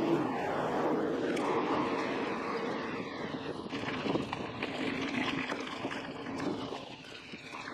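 A Trifox 29-inch hardtail mountain bike being ridden: steady rush of tyre rolling noise and wind on the microphone, with short knocks and rattles of the bike over bumps from about four seconds in.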